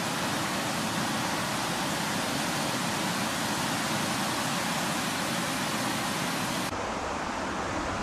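Steady rushing outdoor noise with no clear rhythm. Its hiss drops abruptly about two-thirds of the way through, as if at a cut between shots.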